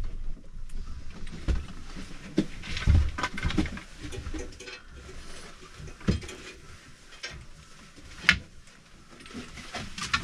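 Scattered knocks, clicks and rustling of skis, snowboards and passengers shifting in a crowded aerial tram cabin, with a sharp click about eight seconds in.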